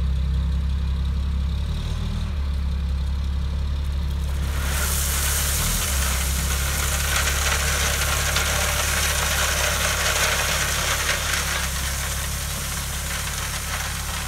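Ford F650 dump truck's engine running with a steady low hum as the truck creeps forward. About five seconds in, crushed limestone starts pouring from the open tailgate, adding a steady rushing hiss of stone spilling onto the driveway as it is spread.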